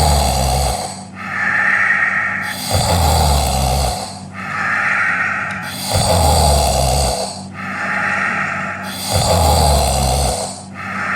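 Snoring sound effect: a low rattling snore alternating with a higher whistling breath, repeating about every three seconds, four times over.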